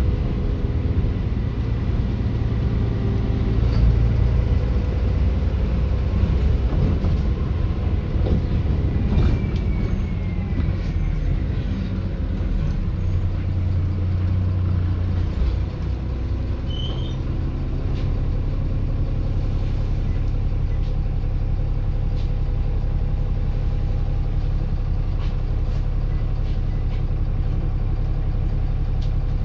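Dennis Enviro400 double-decker bus engine running, its drone changing in pitch and strength as the bus drives. About two-thirds of the way through it settles into a steady, even note.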